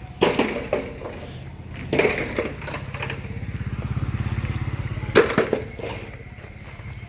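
Construction-site noise: a small engine running with a steady low pulse that swells in the middle, broken by loud clattering knocks at the start, about two seconds in, and about five seconds in.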